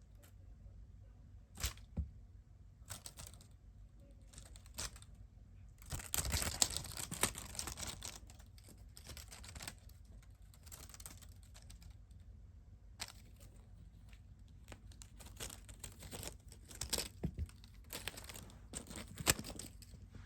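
Intermittent rustling, crinkling and light clicking, with a denser stretch of rustling about six seconds in.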